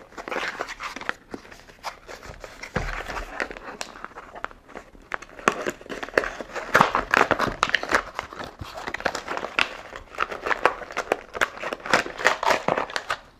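A small cardboard product box being opened and unpacked by hand: cardboard and packaging rustling and crinkling in irregular clicks and scrapes.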